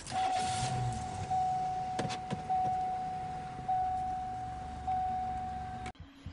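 A car's warning chime, a single tone that dings about once every 1.2 seconds with each ding fading into the next, over a low rumble inside the car. Two clicks sound about two seconds in, and the chime cuts off just before the end.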